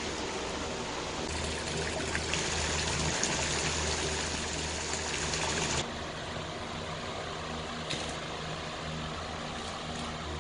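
Water from a hose splashing and trickling into a soapy stainless-steel flat evaporator pan. About six seconds in it cuts to a quieter, steady rushing noise from the wood-fired cinder-block evaporator boiling maple sap.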